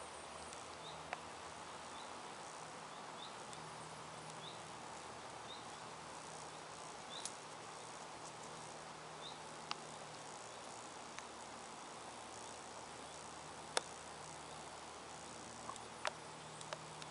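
Quiet woodland ambience: a faint steady hiss with a short, high chirp repeated about once a second for the first six seconds and once more a little later. A few sharp clicks and a low hum that fades in and out lie underneath.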